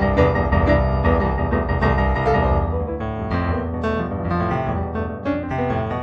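Piano music, played as a busy run of notes.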